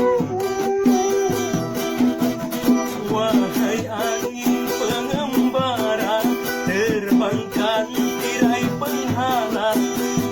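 Music: plucked guitar accompaniment, with a wavering melody line coming in over it about three seconds in.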